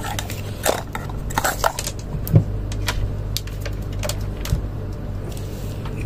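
A few sharp clicks and light knocks of handling, scattered over a steady low hum.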